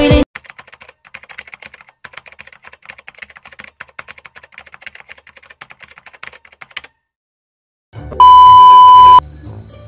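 Computer keyboard typing, rapid light clicks for several seconds. After a short silence comes a hiss of static and then a loud, steady one-tone beep lasting about a second: the TV colour-bar test tone.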